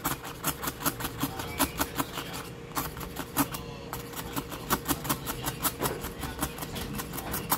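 Razor blade scraping film off the glass colour-filter plate of an LCD panel, in quick short strokes several a second.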